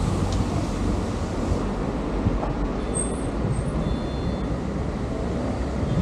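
Steady low rumble of road vehicle noise.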